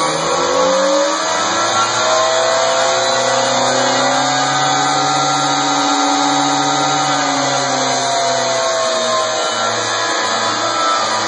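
Logo-intro sound effect: a loud, steady motor-like drone whose pitch slowly rises in the first few seconds, holds, then sinks slowly, over a constant rushing hiss.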